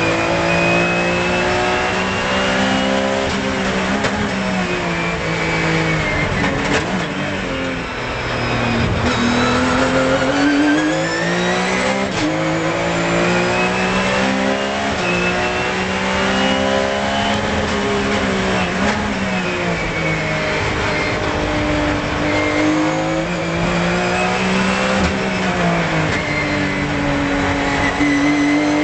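Porsche 997 GT3 Cup's flat-six engine at racing speed, heard inside the cockpit: its pitch falls as the car slows and downshifts, dipping about eight seconds in, then climbs again under hard acceleration, and falls and rises once more later on.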